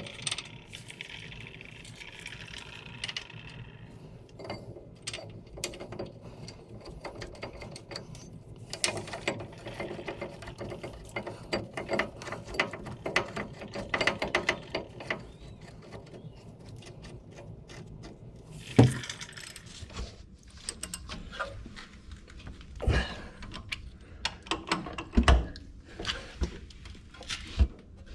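Hand ratchet clicking in runs during brake and hub reassembly, with several loud metal clunks in the second half.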